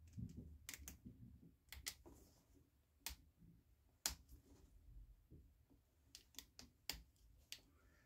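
Faint, irregular clicks and ticks of a small screwdriver working at the on/off switch terminals of a Makita RT0702C router, prying the blue wire loose from the switch.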